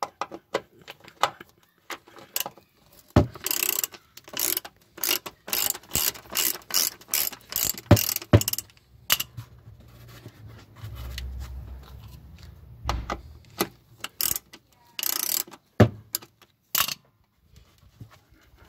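Hand socket ratchet turning a 10 mm bolt, its pawl clicking in runs of quick ticks, about three a second, with a pause in the middle.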